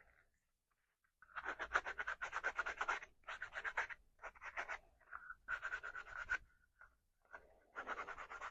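Sandpaper rubbed quickly back and forth along the edge of a plastic knife sheath: rapid scratchy strokes in about five short runs with brief pauses between them.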